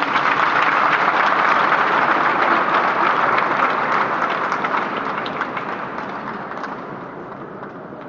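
Congregation applauding: dense clapping that starts at once and dies away over the last few seconds.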